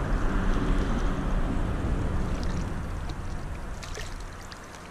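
River current rushing close by: a steady wash of water noise, heavy in the low end, that fades gradually over the last couple of seconds.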